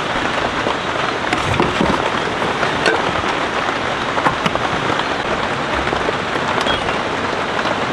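Rain falling steadily, with scattered louder drops striking close by.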